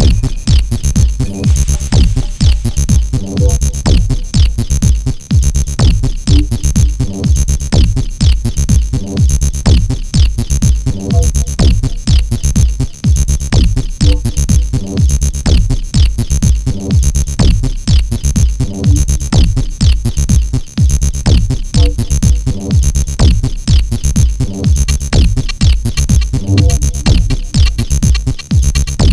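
Electronic dance music with a fast, steady drum-machine beat, heavy bass and synthesizer.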